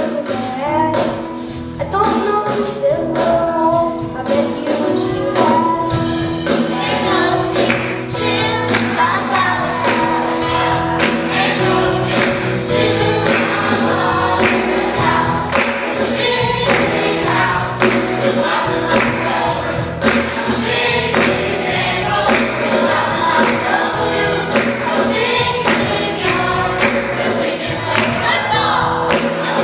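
Children's choir singing an upbeat gospel song, accompanied by a live band with guitar and drums keeping a steady beat.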